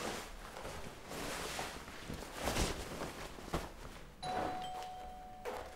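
Fabric rustling as a shirt is pulled on in a hurry, then a doorbell chime rings about four seconds in and fades.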